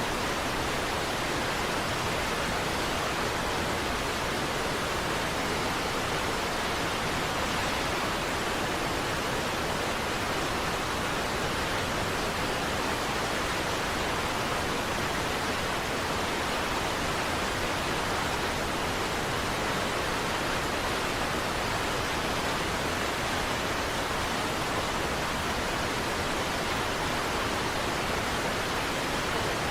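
Niagara Falls pouring: a steady, even rush of falling water with no breaks or changes.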